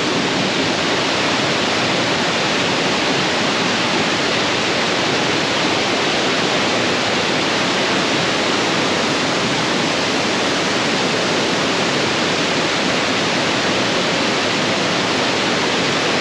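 Waterfall pouring into a pool: a loud, steady rush of falling water with no let-up.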